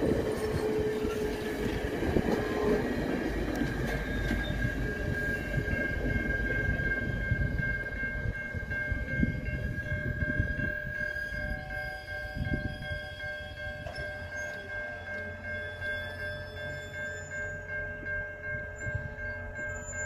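Steel passenger cars rolling past over the rails, the rumble fading away over about ten seconds as the last car clears. A level-crossing warning bell rings steadily and evenly throughout and is left on its own near the end.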